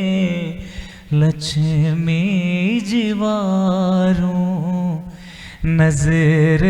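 A man singing a Hindi devotional song (bhajan) to his guru, in slow, drawn-out phrases with a wavering, ornamented pitch. The line breaks briefly twice, about a second in and again near the end.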